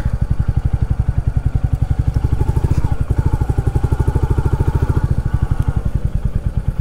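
Motorcycle engine running at low revs with an even, rapid thud of exhaust pulses, heard close from the rider's seat as the bike rolls slowly.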